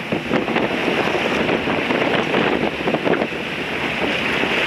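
Bow wave rushing and splashing along the hull of a C&C sailboat heeled under sail, with wind buffeting the microphone.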